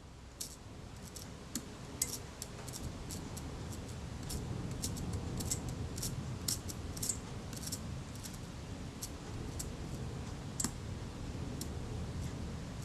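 Light, irregular clicks and taps of small metal camera parts and hand tools being worked on a bench, over a steady low hum.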